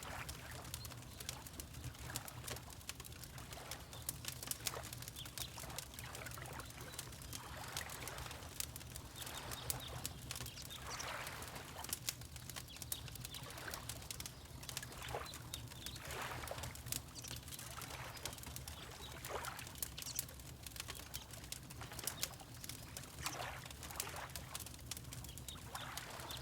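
Wood fire crackling with frequent sharp pops over a low steady rumble, while water laps gently in soft, irregular washes every few seconds.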